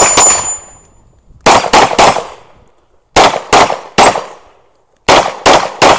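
Staccato C2 pistol firing about a dozen shots in quick strings of two to four, with a brief metallic ring from a steel target hit just after the first shot.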